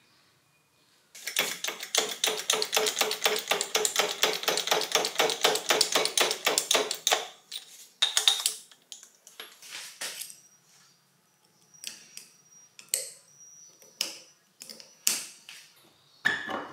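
A fast, even run of sharp mechanical clicks, about six a second, lasting some six seconds, followed by scattered single taps and knocks.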